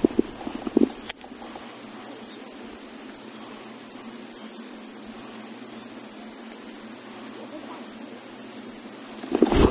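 Crickets chirping in a steady, high, even buzz over a faint outdoor hiss. A few sharp knocks come in the first second, and a sudden loud thump and rustle near the end.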